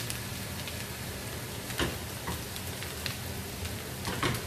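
Minced garlic frying in plenty of oil in a small pan: a steady sizzle with a few sharp pops and crackles.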